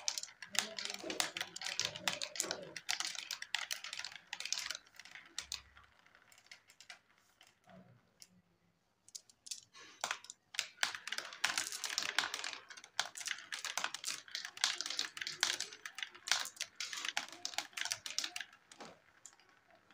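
Marbles rolling and clattering down a plastic building-block marble run, a dense run of rapid clicks. The clicking dies away about eight seconds in and starts again about two seconds later as marbles are dropped into the funnel.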